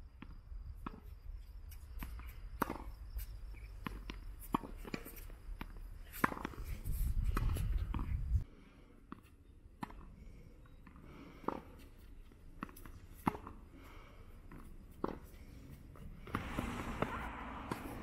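Tennis balls struck by rackets and bouncing on a hard court: sharp, irregular pops about a second or two apart. A low rumble sits under the first half and cuts off suddenly a little before midway.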